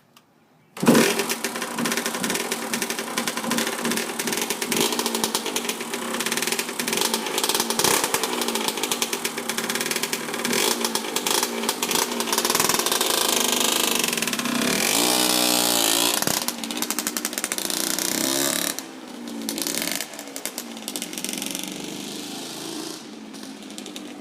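1993 Kawasaki KX125's freshly rebuilt single-cylinder two-stroke engine starting about a second in and running, revved up and down at one point before it drops to a lower idle near the end. The owner says the jetting and idle still need tuning.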